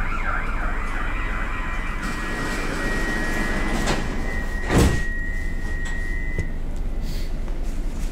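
Stockholm subway train heard from inside the car, rumbling as it slows into a station, with a high steady whine that fades out about six and a half seconds in. A single loud clunk sounds near the middle.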